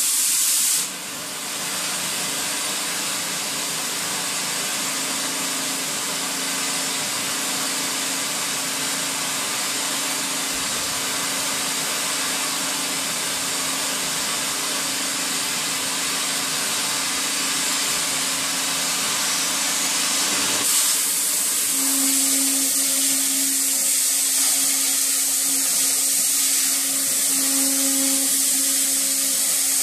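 Oxy-fuel cutting torch on a CNC torch table hissing steadily as it cuts steel plate, with a faint steady hum underneath. About 21 seconds in, the hiss turns brighter and a little louder.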